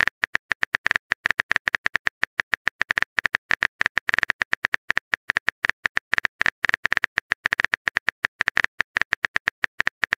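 Simulated phone-keyboard typing: rapid key-tap clicks, about ten a second, as a chat message is typed out letter by letter in a texting-story app.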